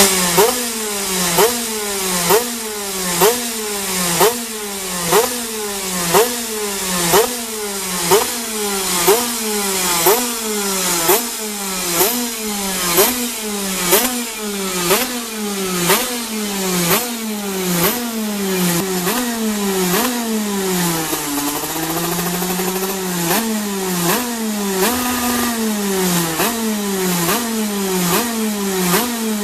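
Racing go-kart's two-stroke engine and exhaust being blipped on the stand, the revs snapping up and falling back about once a second. Around two-thirds of the way through the revs sink lower and climb back more slowly, then the regular blips resume.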